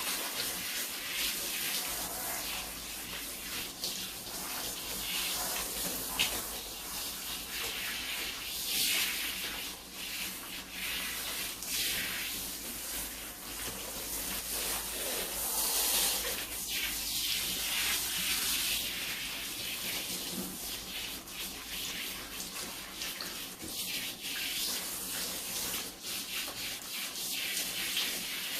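Water running steadily, a continuous rushing hiss that varies a little in strength but never stops, as while shampoo is worked into and rinsed from long hair.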